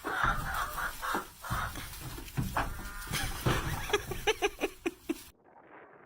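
Animal calls with a run of short, quick repeated calls about four seconds in. The sound drops abruptly to a quieter, thinner one about five seconds in.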